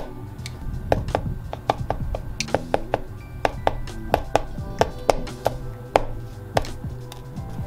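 Background music with a run of sharp, irregular taps or knocks, about two or three a second, from handwork on a leather piece.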